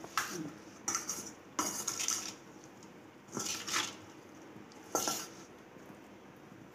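Steel spoon scraping and clinking against a stainless steel bowl as spice-coated boiled potatoes are tossed, in about five short bursts with quieter gaps between.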